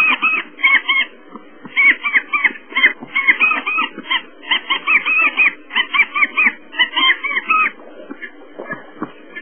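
African wild dogs twittering: runs of short, high-pitched chirps, several a second, with brief pauses between runs, over a low steady background noise.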